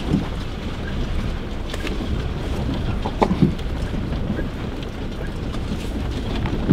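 Toyota Hilux pickup driving slowly up a rocky track, heard from inside the cab: a steady low engine and tyre rumble, with a few short knocks and creaks as it goes over rocks, the clearest about three seconds in.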